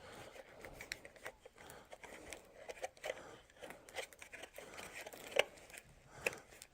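Light handling of small plastic parts: scattered soft clicks, scrapes and rustles, with two sharper clicks near the end.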